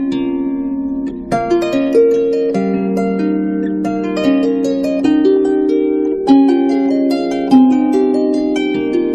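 Instrumental background music: a melody of plucked string notes, each ringing and fading, in a harp-like sound.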